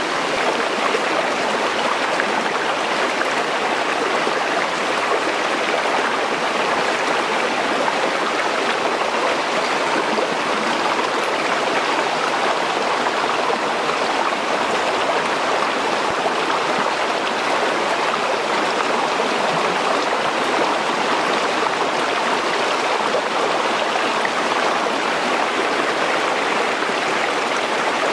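Shallow rocky stream running over stones, a steady, even rush of water.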